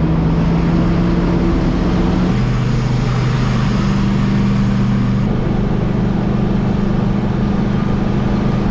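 Truck engine running steadily under load, its pitch stepping down to a lower note about two seconds in.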